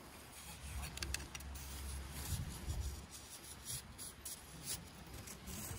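Rubbing and scraping with a few light clicks, in short irregular strokes.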